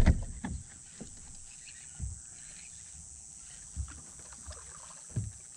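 A handful of short, faint knocks and thumps, about five scattered a second or so apart, against a low steady background.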